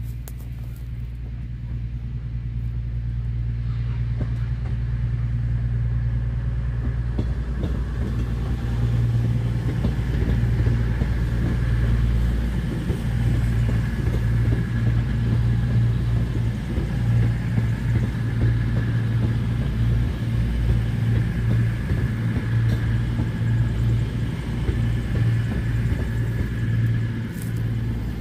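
Class 221 Super Voyager diesel-electric multiple unit passing, its underfloor Cummins diesel engines running with a deep drone that grows louder over the first several seconds and then holds steady as the carriages go by. A steady high whine sits above the engine noise through the middle of the pass.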